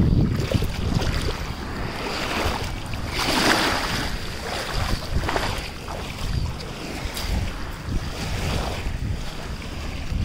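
Small waves washing over the sand at the water's edge, with wind buffeting the phone's microphone in low rumbling gusts. A wash of surf swells about three seconds in.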